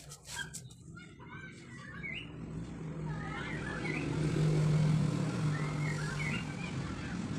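A vehicle's engine hum builds up and is loudest about halfway through, with a bird chirping several times over it. A few clicks at the very start.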